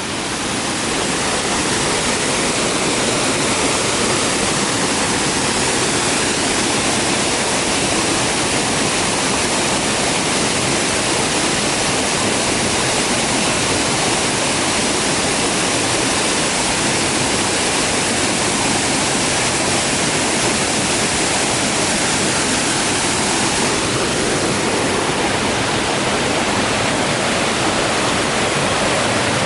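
A waterfall's water pouring down: a loud, steady rushing that grows louder over the first second or two and then holds unchanged.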